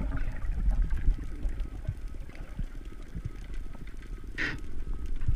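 Underwater sound through an action camera's housing: a steady low water rumble with scattered faint clicks, and one short hissing burst a little over four seconds in.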